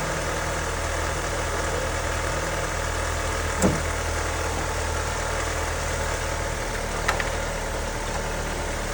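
A 2012 Honda Civic's four-cylinder engine idling steadily after an air intake hose replacement, sounding good. A single thump comes about a third of the way in, and two quick clicks follow later.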